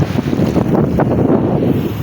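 Strong wind buffeting the microphone, a loud, gusty low rumble.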